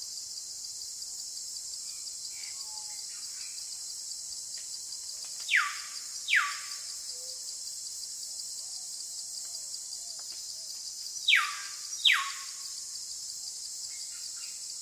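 Jungle ambience: a steady high-pitched chorus of insects, broken by a bird giving loud, quick falling whistles, two pairs of them about six seconds apart.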